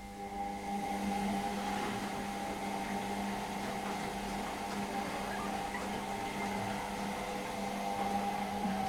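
Washing machine running: a steady motor hum with a whirring drum that starts up and builds over the first second, then holds level.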